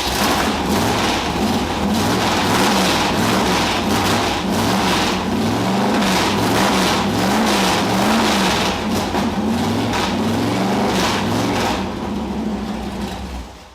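Chevrolet 454 big-block V8 through side pipes, running loud just after a cold start, its revs swinging up and down over and over as the throttle is pumped to keep it alive. It is cold with no choke. The sound drops away near the end.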